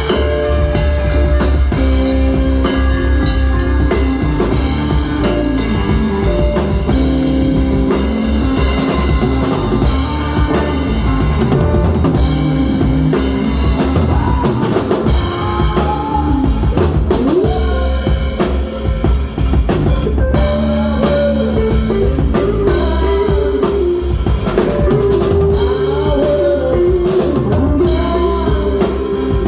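Rock band playing live with a drum kit, bass guitar and electric guitars, under a steady low bass line and regular drum hits, with a lead line bending notes up and down.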